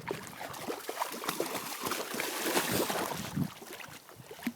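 Irregular splashing of river water as dogs wade and swim, swelling in the middle and easing toward the end.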